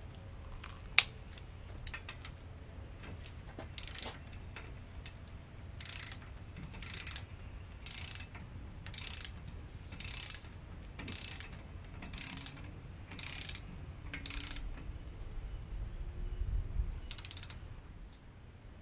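Ratcheting torque wrench tightening the front wheel-hub spindle nut to 18 foot-pounds: a sharp click about a second in, then short bursts of ratchet clicking about once a second.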